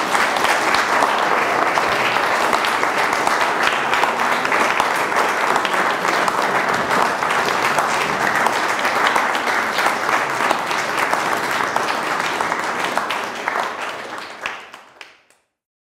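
Audience applauding, a dense steady patter of many hands clapping that thins out and dies away in the last second or so.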